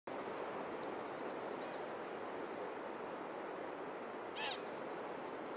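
A single short, sharp bird call a little after four seconds in, with a fainter chirp earlier, over a steady hiss of forest air and phone-microphone noise.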